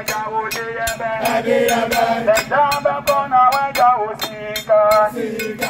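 A group of voices chanting a song, with sharp claps keeping a steady beat a few times a second.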